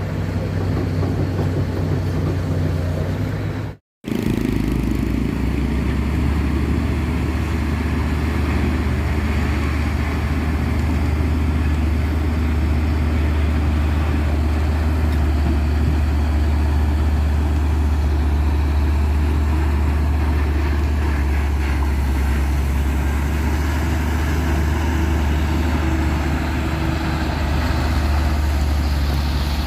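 Heavy diesel engine running under load with a deep, steady drone. It breaks off in a brief silent dropout about four seconds in, then comes back deeper and steadier.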